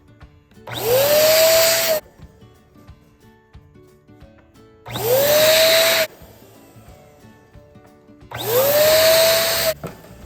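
Electric balloon air pump run in three short bursts of just over a second each. Its motor tone rises quickly as it spins up, then holds steady until it cuts off. Quiet background music plays between the bursts.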